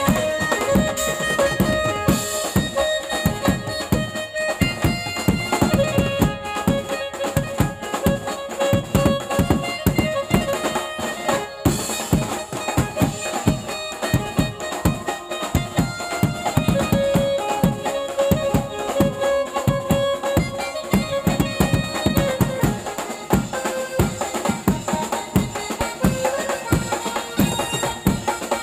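Electronic keyboard playing a lively Koli folk-song melody over a steady, fast drum beat from a banjo-party street band.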